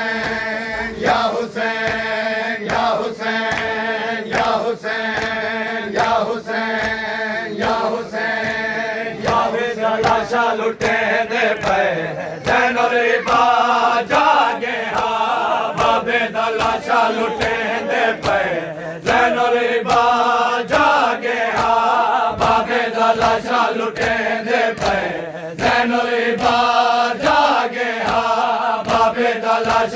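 A group of men chanting a nauha, a Shia mourning lament, in unison, over a steady beat of hands slapping bare chests in matam.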